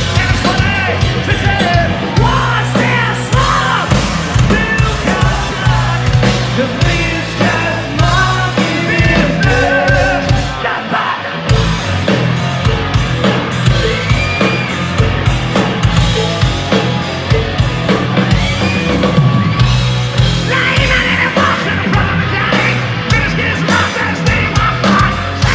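Live hard rock band playing loud, with distorted electric guitars through Marshall amplifiers, bass and a pounding drum kit, and yelled singing over it.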